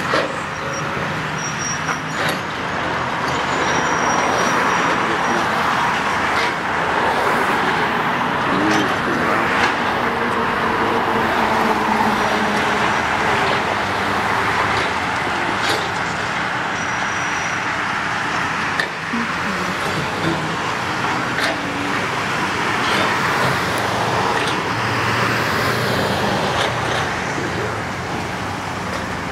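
Steady road traffic on a city street, cars and a van driving past, with a few sharp knocks scattered through it.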